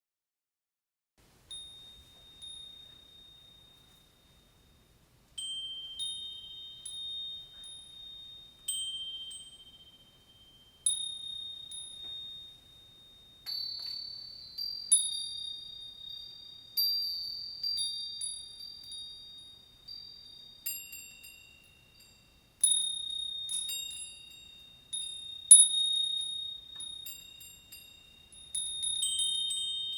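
Japanese fūrin wind chimes ringing, each clear high strike fading away. A first strike about a second and a half in, then a pause. From about five seconds in, the strikes come irregularly at a few slightly different pitches, growing busier toward the end.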